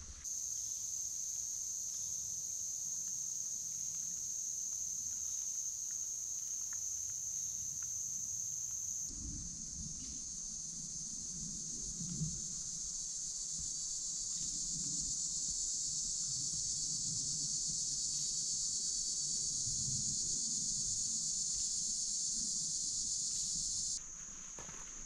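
A steady, high-pitched chorus of insects droning without a break, shifting in tone abruptly about nine seconds in.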